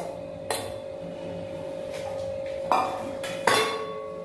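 Stainless-steel bowl knocking and clinking against a steel kadai as chopped onions are tipped out of it, then the bowl being set down. There are a few separate knocks, and the last one leaves a short metallic ring.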